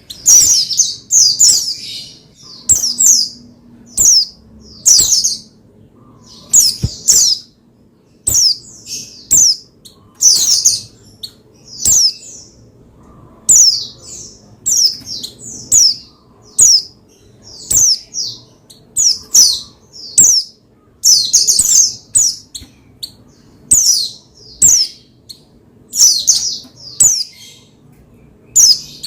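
Pleci (white-eye) singing in quick, high-pitched chirping phrases. Each phrase is a short run of falling notes, repeated about once a second. It is the lively, agitated song used to fire up other pleci.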